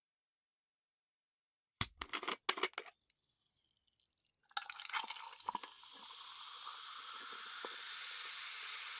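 A quick run of sharp clicks and cracks about two seconds in. Then, from about halfway, carbonated soda is poured into a glass: splashes at first, settling into a steady fizz of bubbles.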